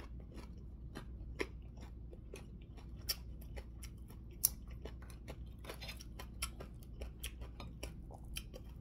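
Close-up eating sounds of a man eating with his hands: irregular small clicks and smacks of chewing and of fingers picking at food, a few sharper ones about a second and a half, three and four and a half seconds in, over a steady low hum.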